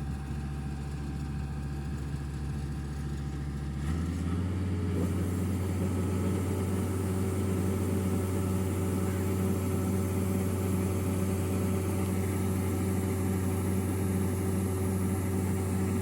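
Kubota rice combine harvester's engine running steadily. About four seconds in it speeds up and gets louder, then holds at the higher speed.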